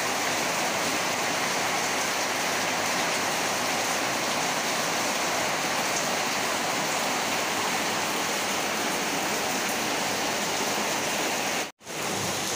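Heavy rain falling steadily, with rainwater pouring down off the roof and splashing onto the ground. The rush cuts out for a moment near the end.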